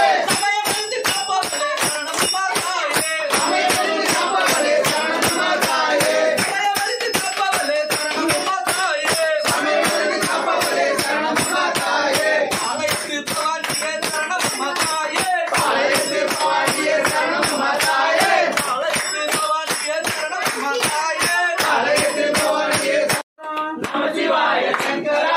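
Devotional music: singing over a fast, even percussion beat. It cuts off abruptly near the end.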